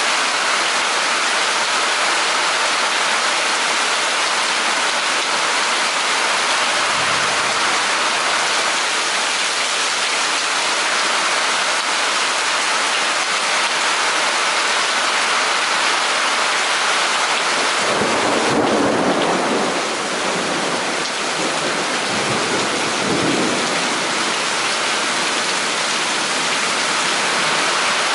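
Steady heavy rain falling during a thunderstorm, with a roll of thunder rumbling low for several seconds about two-thirds of the way through.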